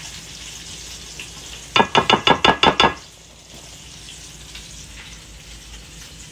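Chicken wings frying in oil with a steady sizzle. About two seconds in comes a rapid run of about nine sharp, ringing pulses lasting about a second, louder than the frying.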